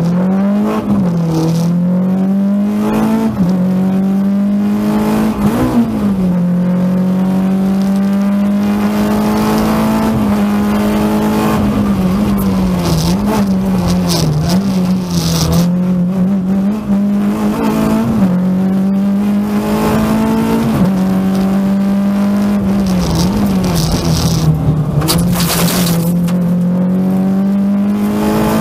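Renault Clio 16V rally car's four-cylinder engine heard from inside the cockpit, held at high revs under hard acceleration. The revs dip briefly and pick up again several times at gear changes and lifts for corners.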